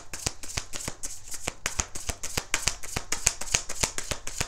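Deck of tarot cards being shuffled overhand by hand: a quick, steady run of light card slaps and flicks, about six or seven a second.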